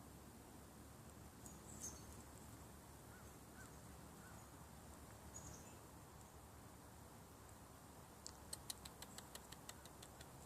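Faint, near-silent outdoor ambience with a couple of soft high chirps, then a quick run of sharp clicks, several a second, near the end.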